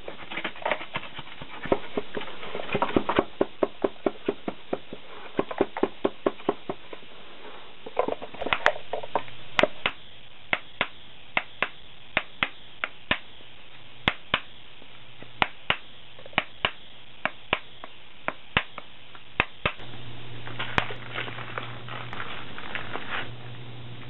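Greensand being rammed into a metal can flask with a wooden rammer: a run of sharp knocks, roughly one or two a second. Gloved hands scrape and pack loose sand at the start and again near the end.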